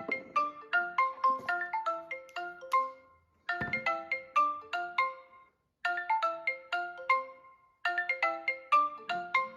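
Mobile phone ringtone: a short melody of quick, bright notes, played over and over with brief breaks between the phrases.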